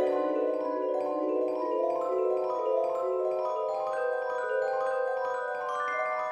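Background music led by a mallet instrument such as a marimba or vibraphone, playing a gentle melody of evenly paced notes that climbs higher near the end.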